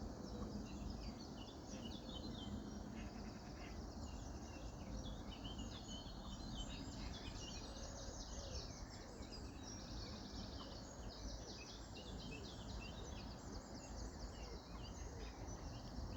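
Many small birds chirping and twittering at once in a dense, unbroken chorus, over a steady low rumble.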